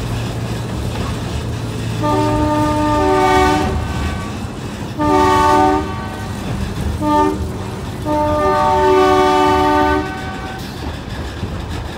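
Narrow-gauge tourist train's horn sounding four blasts, each a chord of several notes: a long one about two seconds in, a short one near five seconds, a very short toot near seven seconds, and a long one from about eight to ten seconds. The train's steady running rumble carries on underneath.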